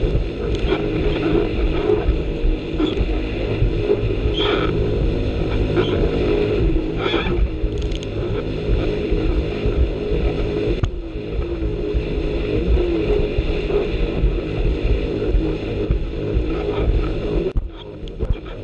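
Jet ski engine running steadily at speed, with scattered short thuds as the hull slaps over the chop. The sound drops away briefly near the end.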